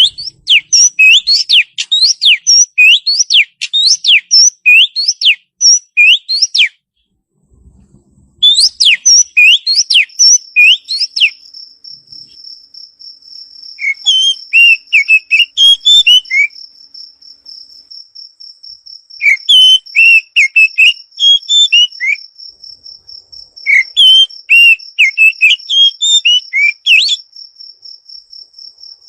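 Songbird master recording for training caged birds: phrases of rapid, sharp whistled notes sweeping up and down, each a few seconds long with short gaps between them. From about ten seconds in, a continuous high, insect-like trill runs under the song.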